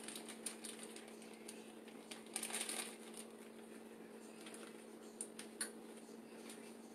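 Faint crinkling of a plastic sausage-roll wrapper being squeezed and peeled as the raw sausage is pushed out, loudest about two and a half seconds in, followed by a couple of light clicks.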